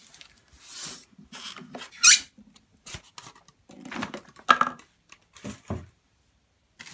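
A single sharp squeak that rises quickly in pitch, about two seconds in: the turntable's case rubbing against its polystyrene foam packaging insert as it is lifted out. Around it come rustles of the plastic wrap and a few light handling knocks.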